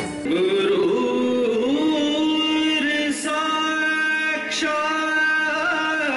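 A song starts just after a short dip in level: a solo singing voice holds long notes that glide slowly from one pitch to the next over music.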